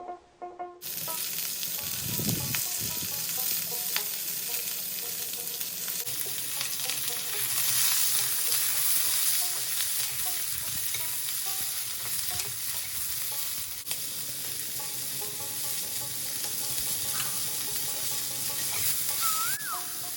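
Food frying in hot oil in a pan, a steady loud sizzle that starts suddenly about a second in, with occasional stirring scrapes.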